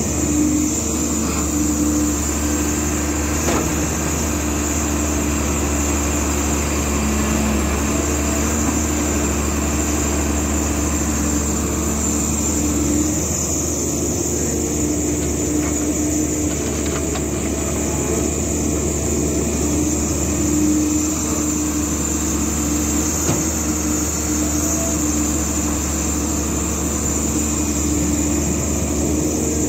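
Caterpillar hydraulic excavator's diesel engine running steadily as the machine digs and swings, its pitch shifting now and then, with a high steady hiss and a few faint knocks.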